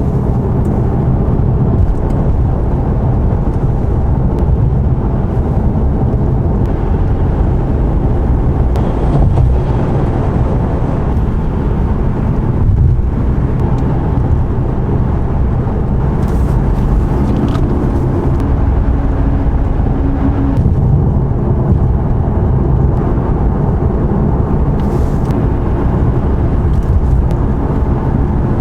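Ford Mustang cruising at highway speed, heard from inside the cabin: a steady low rumble of engine, tyre and road noise.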